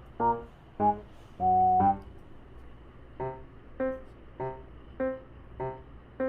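Background music: a light comic keyboard tune of short notes, about one every half second or so, with one longer held note about a second and a half in.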